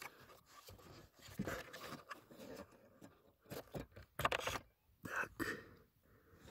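Hard plastic clicking and scraping as the AC evaporator temperature sensor (G263) is twisted and pulled by hand out of its seat in the evaporator housing, in short irregular bursts.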